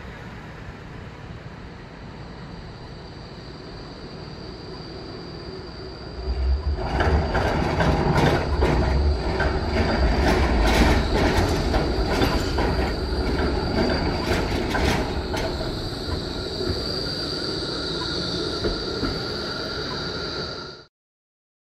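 E-class tram passing at close range, arriving about six seconds in: a low rumble and a run of clattering clicks from its wheels on the track, with a steady high-pitched wheel squeal that carries on after the clatter fades. The sound cuts off suddenly near the end.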